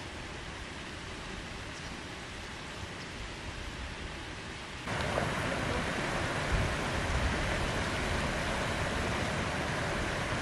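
Steady outdoor rushing noise that jumps louder about five seconds in, with low gusts of wind buffeting the microphone.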